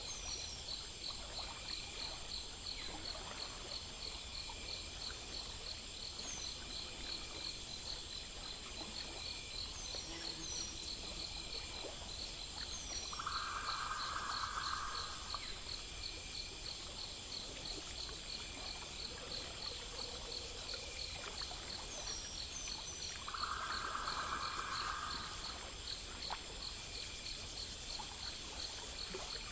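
Night ambience of insects: crickets pulsing steadily, with a thin high insect drone beneath. Twice a louder buzzing trill lasts about two seconds, and a few short high chirps come and go.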